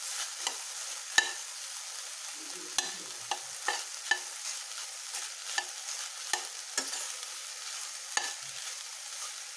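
Metal spatula stirring and scraping a dry stir-fry of cluster beans and crumbled lentils in a stainless steel pot, clinking against the pot at irregular intervals, the sharpest clink about a second in. A steady sizzle from the hot pan runs underneath.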